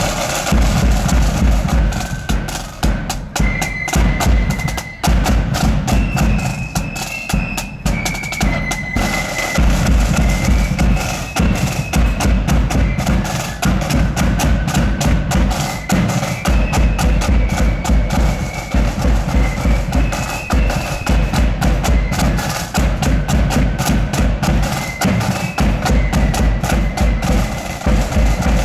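Marching flute band playing a march: a high flute melody over a steady bass drum beat and rattling snare drums.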